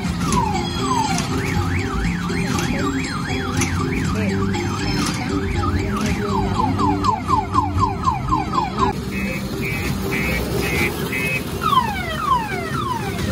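Electronic siren and car-alarm sound effects from an odong-odong kiddie ride's loudspeaker, over a simple tune. The effects go from repeated falling whoops to a fast up-and-down wail and quick falling chirps. About nine seconds in there are five short beeps, and then the falling whoops return.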